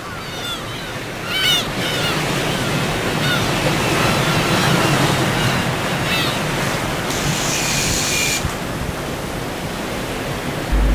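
Sea surf breaking and washing on a pebble beach, a steady rushing noise.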